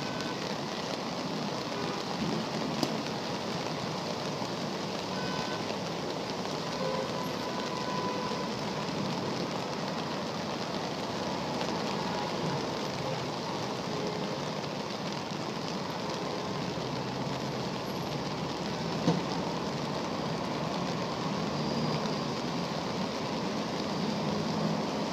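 Steady hiss of rain and rushing floodwater, with cars ploughing through the flooded street and pushing up wakes, swelling a little near the end. Two brief knocks, one near the start and a louder one about two-thirds of the way through.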